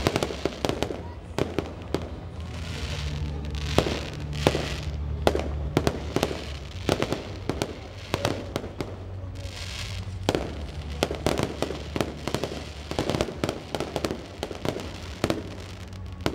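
Fireworks display: aerial shells bursting in a rapid, irregular series of sharp bangs and crackles.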